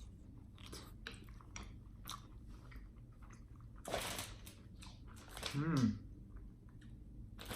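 Close-up mouth sounds of a person chewing a mouthful of escargot fried rice, with soft wet clicks and smacks. A short loud breathy burst comes about four seconds in, and a brief hummed "mm" with a wavering pitch follows shortly before six seconds.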